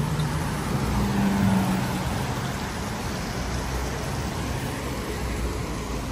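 Road traffic passing on a wet city street, a steady wash of tyre and engine noise, with one vehicle's engine louder for a moment about a second in.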